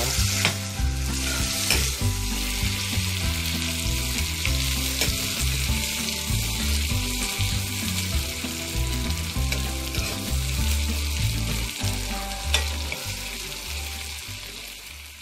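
Sliced onions sizzling in hot oil in a steel kadai, with a metal spatula stirring and clicking against the pan a few times, over a low rumble. The sizzle fades somewhat near the end.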